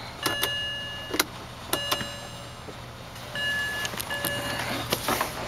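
Sharp switch clicks and a car's electronic warning chime sounding four short tones of fixed pitch in a 2007 BMW 328xi's cabin, as the exterior light switch is worked, over a faint low steady hum.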